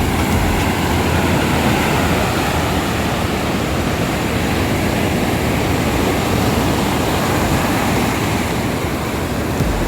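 Ocean surf breaking on a beach: a steady, unbroken rush of waves.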